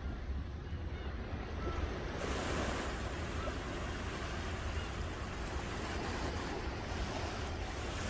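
Ocean surf: waves breaking and washing in a steady rush, the hiss swelling brighter about two seconds in as a wave comes up the shore.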